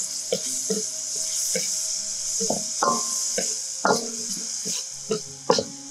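Food sizzling in hot oil in a metal wok while a metal ladle stirs it, scraping and knocking against the wok at irregular intervals, some strikes leaving a brief metallic ring.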